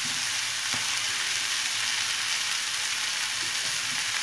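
Marinated chicken tikka drumsticks sizzling steadily as they shallow-fry in about a tablespoon of oil in a frying pan.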